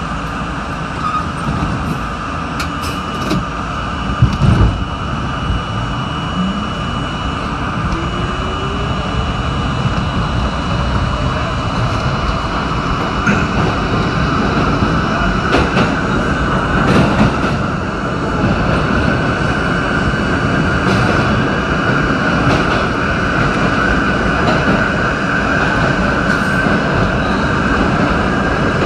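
R32 subway train pulling out of a station and accelerating into the tunnel. A motor whine rises in pitch a few seconds in, over dense wheel-and-rail rumble with a few sharp knocks, and the running noise grows steadily louder.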